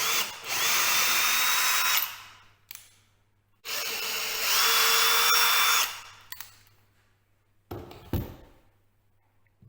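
Power drill on its slow screwdriver setting, running in two bursts of about two seconds each with a steady whine, its chuck clamped directly onto a loose, drawn-out door-hinge screw to back it out. A short knock follows near the end.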